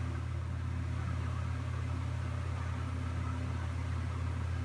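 A steady low hum at an even level, with no other sound standing out.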